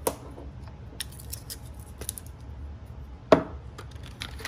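Light clicks and knocks of kitchen items being handled and set down on a countertop, with one sharper knock about three seconds in.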